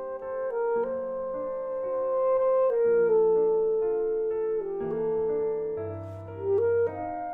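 Alto saxophone playing a melody of long held notes, changing pitch every second or two, with piano accompaniment.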